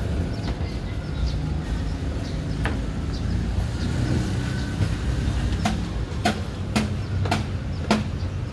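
Steady low rumble of street traffic. In the second half come five sharp clicks, about half a second apart.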